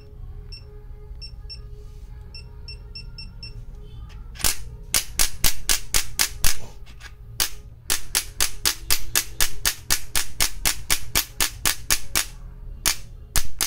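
Electric chiropractic adjustor gun: its control panel beeps in two quick runs of short high beeps as the power is stepped down. Then the gun fires its impulse head in a rapid train of sharp clicks, about four a second, pausing briefly near the end before firing again.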